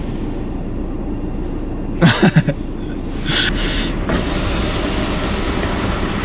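Car idling, heard from inside the cabin, with two short noisy sounds about two seconds and three and a half seconds in. From about four seconds in, outside noise grows louder, as the power window is lowered.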